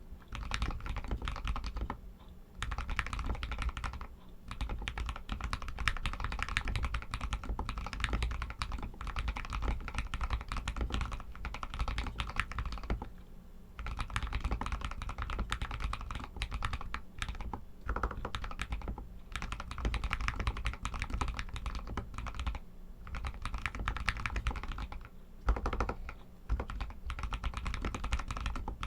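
Typing on a Royal Kludge RK61 mechanical keyboard with Outemu Red linear switches: a rapid, continuous run of keystroke clacks broken by a few short pauses.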